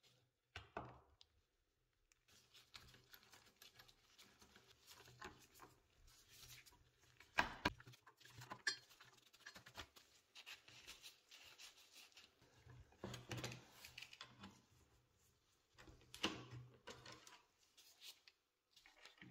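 Screwdriver turning rusty wood screws out of an old steel hinge on a wooden board: faint, irregular scraping and creaking with scattered sharper clicks.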